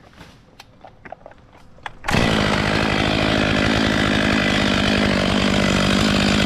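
A few faint knocks and clicks, then about two seconds in a chainsaw goes suddenly to full throttle and runs loud and steady at an even pitch.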